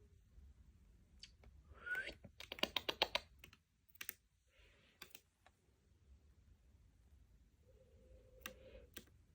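Faint scattered clicks and taps, with a quick run of clicks a little before three seconds in and a short rising chirp just before that run.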